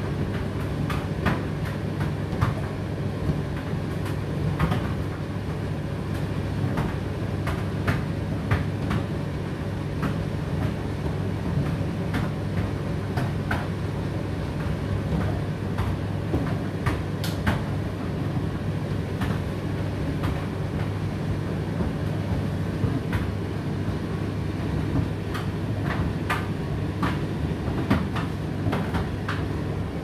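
Indesit IDC8T3 condenser tumble dryer running: a steady low motor and fan hum as the drum turns. Irregular light clicks and knocks come from the load tumbling in the drum.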